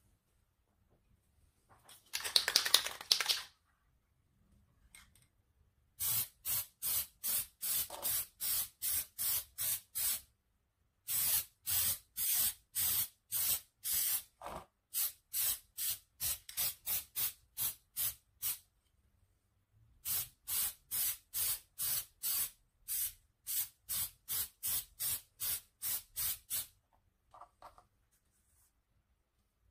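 Aerosol can of spray-on contact glue being sprayed in many short hissing bursts, about three a second, in three long runs, coating the pads. A brief loud clatter about two seconds in is the loudest sound.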